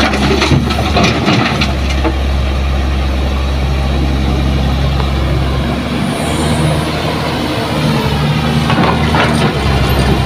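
Diesel engines of a Kobelco hydraulic excavator and a dump truck running with a steady low drone. A few sharp knocks in the first couple of seconds are soil and stones landing in the truck's tipper bed.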